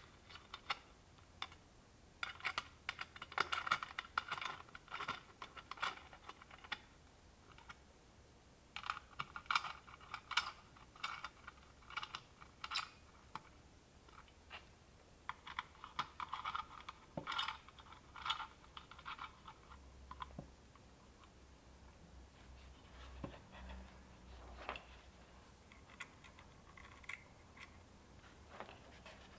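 Runs of small, quick clicks and ticks: a hex key working the screws of a PortaPack board and fingers handling its aluminum case. The clicks come in bursts and grow sparser and fainter over the last third.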